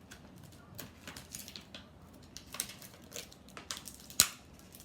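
Scissors cutting through plastic toy packaging: irregular snips and crackles, with one sharp snap about four seconds in.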